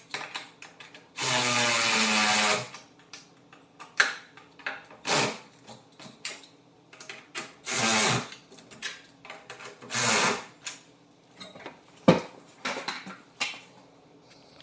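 A power drill running in short bursts: one of about a second and a half near the start, then three shorter ones, with clicks and clinks of tools and hardware between them.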